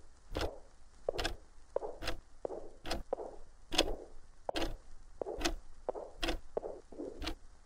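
Footsteps of a walking figure, slow and even, a little more than one step a second: each a sharp tap, with softer scuffing sounds between the steps.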